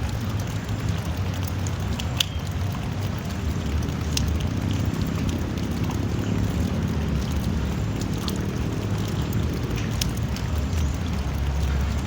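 Drizzling rain: a steady hiss with a low rumble underneath and scattered sharp drips, the clearest about two, four, eight and ten seconds in.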